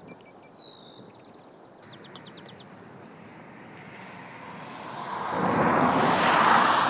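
Small birds chirping, with a short rapid trill about two seconds in, then a rushing noise that swells to a loud peak near the end and begins to fade.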